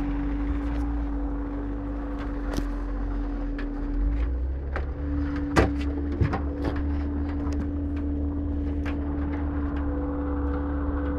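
Inside a Honker 4x4's cabin on a rough, muddy track: the engine and drivetrain run with a steady hum over a low rumble, and the body gives scattered knocks and rattles over the ruts, the loudest about halfway through.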